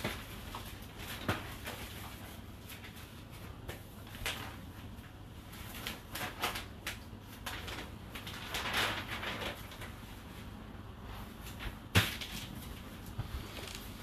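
Whirlpool WFO3P33DLXUK dishwasher running its second rinse: a low steady hum under irregular swishing bursts, with one sharp click about twelve seconds in.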